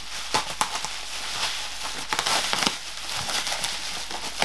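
Bubble wrap being handled and pulled away from a cardboard carton, crinkling steadily with many sharp crackles, a cluster of louder ones a little past the middle.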